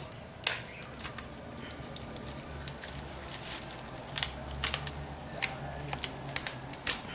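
Irregular sharp clicks and light crackles of small hand tools and thin plastic being worked on a MacBook Air keyboard, most likely the adhesive backlight sheet being pried and peeled off, over a low steady hum.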